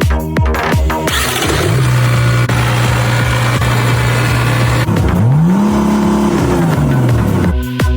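Truck engine running steadily, then revved once, its pitch rising and falling back, between stretches of electronic music.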